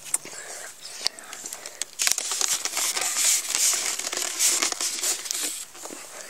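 Rustling, crinkling handling noise with a few sharp clicks, louder and denser from about two seconds in, then easing off near the end.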